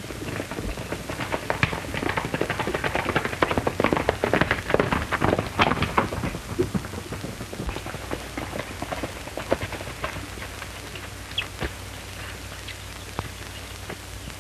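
Two horses galloping on a dirt road, their hoofbeats building to a dense peak about four to six seconds in, then thinning to scattered clops as they slow. Heard over the steady hiss and low hum of an early film soundtrack.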